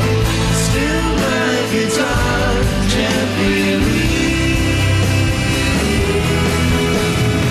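Live rock band playing a slow rock song, with electric guitar over bass and drums and bending lead notes about a second in.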